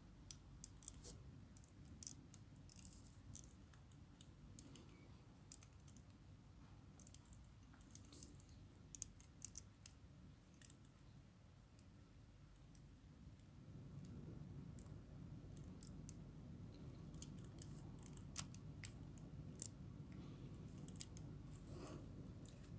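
Scattered faint plastic clicks and taps as a Transformers Masterpiece MP-39 Sunstreaker figure is handled and its legs are stepped and posed. A low, steady background rumble grows louder about two-thirds of the way in.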